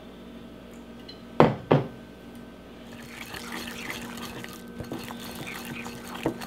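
Milk poured from a glass jar into a glass bowl of powdered sugar, then two sharp knocks about a second and a half in. From about three seconds in, a wire whisk scrapes and clinks steadily against the glass bowl as it beats the thin powdered-sugar icing.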